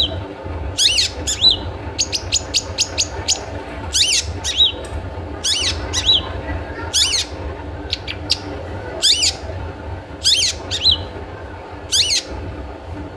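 Long-tailed shrike (cendet) giving its 'toet toet' call over and over: short, harsh, high notes roughly once a second, several with a quick second note, and a run of rapid ticking notes about two seconds in. A steady low hum runs underneath.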